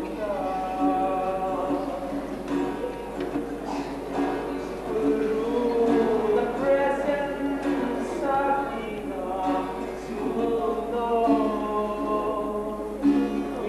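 A man singing a song, accompanying himself on acoustic guitar.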